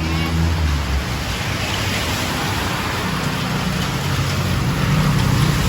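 Steady rain falling, a dense even hiss. A motor vehicle engine hums low underneath from about halfway through, growing louder near the end.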